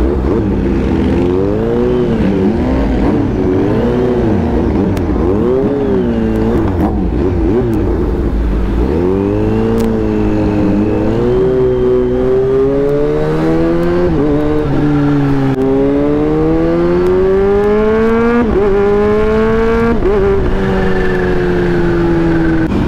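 Kawasaki Z H2's supercharged inline-four, heard from the rider's seat through an aftermarket titanium exhaust. For the first several seconds the throttle is opened and closed so the revs rise and fall. The bike then accelerates through the gears, the pitch climbing and dropping sharply at upshifts about 14 and 18 seconds in.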